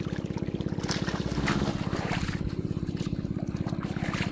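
A small engine running steadily with a fast, even pulse, under water splashing as hands grab at a fish in shallow water.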